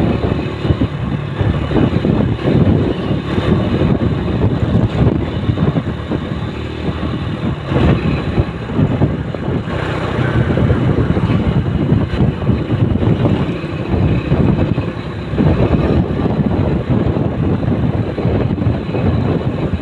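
Steady rumbling road noise from a moving vehicle travelling at speed, with wind buffeting the microphone.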